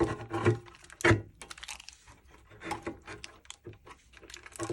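Hands handling subwoofer amplifier and circuit-board parts and cables: a few sharp knocks and clicks in the first second or so, then lighter scattered clicks and rustles.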